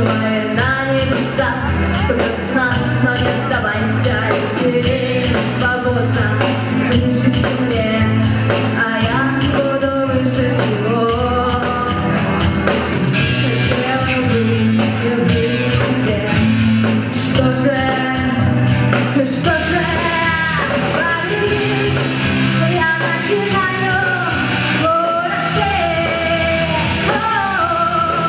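Live rock band playing with a singer, a steady beat and bass under a sung melody line.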